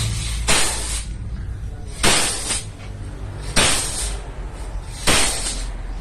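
Short hissing blasts of pressurised air or gas, four of them about one and a half seconds apart, over a steady low hum.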